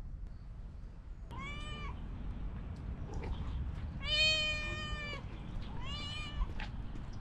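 A cat meowing three times, the middle meow the longest and loudest, over a steady low background hum.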